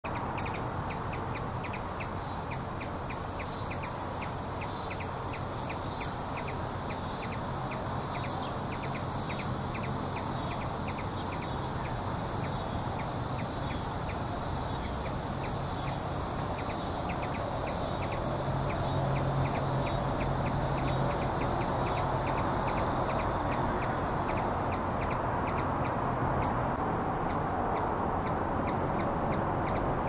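Backyard insects chirping in a rapid, evenly pulsed rhythm with a high buzz. The pulsing fades after about twenty seconds, leaving a steady high buzz, with a steady low hum underneath.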